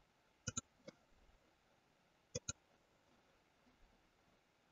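Computer mouse clicking: a quick pair of clicks about half a second in, a faint single click just after, and another quick pair about two and a half seconds in, with near silence between.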